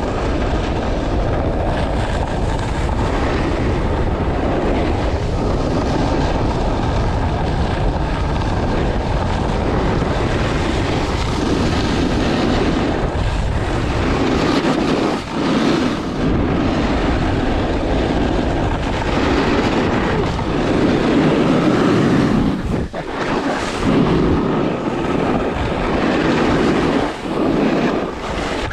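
Wind rushing over the camera microphone and a snowboard's edges scraping over packed, groomed snow. The scraping swells and fades with each turn, every couple of seconds in the second half.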